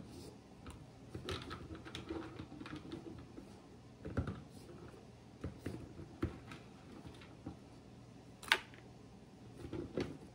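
Irregular light clicks and knocks of a butter knife chipping hard cocoa butter into smaller chunks, with pieces tapping against a plastic bucket. One sharper click comes near the end.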